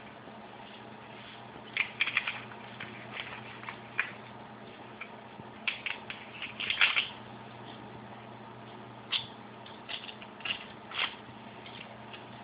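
Paper rustling and crackling as a small sheet is folded and creased by hand, in irregular short crinkles with the loudest cluster a little past halfway. A faint steady hum sits underneath.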